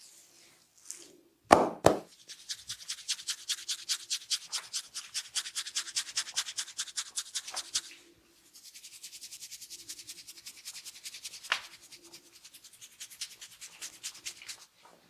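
Two loud slaps, then a barber's fingers scratching and rubbing rapidly through hair and scalp in an even rhythm of about eight strokes a second. After a short pause near the middle the rubbing picks up again, quieter.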